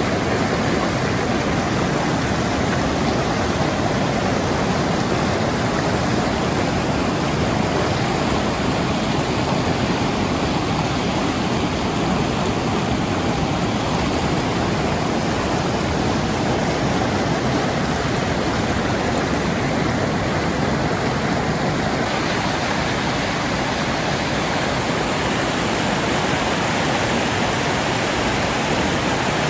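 Steady rush of fast-flowing water from a mountain river or falls, an even roar with no break.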